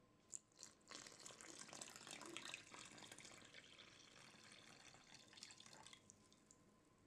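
Warm milk-and-water mixture poured from a jug into flour in a stainless steel mixing bowl: a steady pouring splash lasting about five seconds, after two light clicks.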